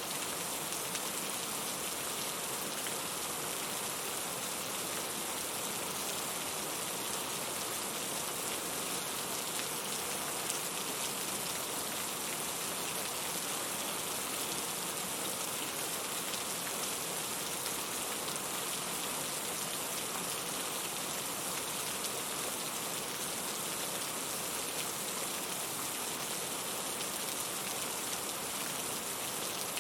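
Steady rain falling, an even hiss of many drops with no let-up.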